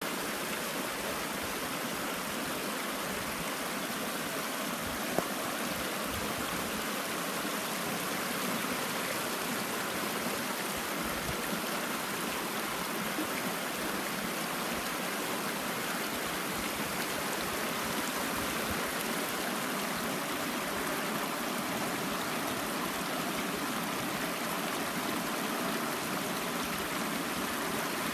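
Mountain stream running steadily over rocks, an even rushing water noise, with a single faint click about five seconds in.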